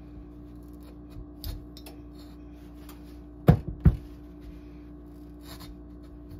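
Two sharp knocks, less than half a second apart, from a kitchen knife and a hard raw spaghetti squash against a countertop as the knife is worked into the tough rind, with a few faint taps and rubs before and after.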